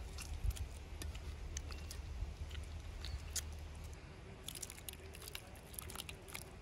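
Faint food-preparation sounds at a steel mixing bowl: scattered small clicks and soft squishes over a low rumble, with a quick run of sharp ticks late on.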